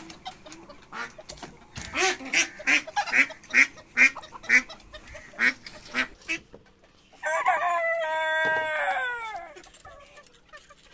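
Backyard poultry calling in a run of short clucks, about two or three a second, then a rooster crows once about seven seconds in, a long call that drops in pitch as it fades out.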